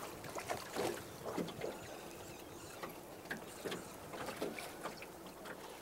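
Water lapping and splashing around a small aluminium boat, in irregular light slaps.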